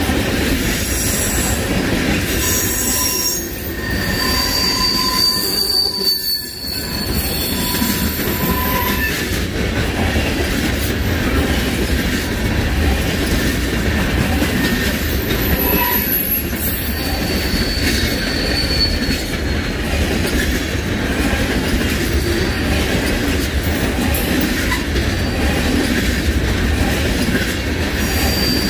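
Freight train cars rolling past with a steady rumble of wheels on the rails, broken by thin, high-pitched wheel squeals that come and go.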